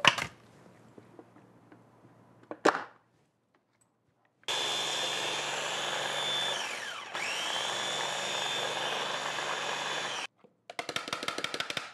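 Small electric food chopper running for about six seconds as it chops kale, garlic, mushrooms and blue cheese. Partway through it is let off for a moment: the whine falls and climbs back up. A couple of clicks come before it starts and a rattle of clicks after it stops.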